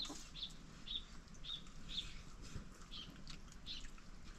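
A small bird chirping over and over, short high chirps about two a second.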